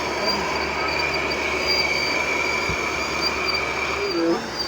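Steady high-pitched whine of a radio-controlled model machine's motor over a noisy background, cutting off about four seconds in.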